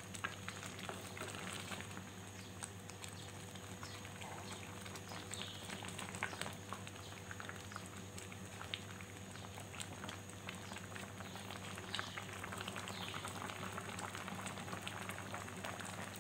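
Miswa noodle soup boiling in an aluminium wok: steady bubbling with many small irregular pops, stirred with a wooden spatula in the first half. A steady low hum runs underneath.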